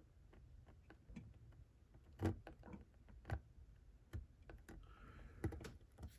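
Faint, irregular small clicks and taps as a fingertip presses and turns the brass smokebox door darts on a model steam locomotive, with two louder clicks about two and three seconds in.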